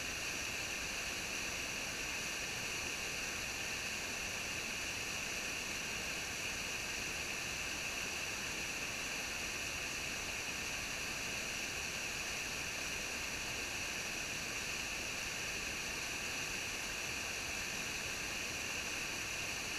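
Small waterfall cascading over boulders into a rocky stream: a steady rushing of water, even in level and strongest in the high hiss.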